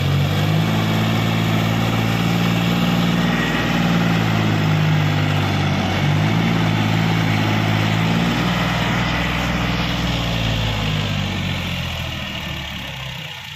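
John Deere 5050 tractor's diesel engine running hard at steady revs while its rear wheel spins and digs in loose sand. The engine note fades away near the end.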